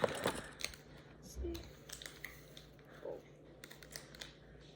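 Faint scattered clicks and taps of a cut-open plastic drink-mix packet and a plastic water bottle being handled.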